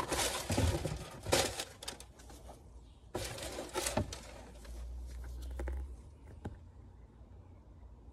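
Rustling and crinkling of sneakers and their paper packaging being handled, in two bursts during the first half, then a few light taps as a shoe is set down.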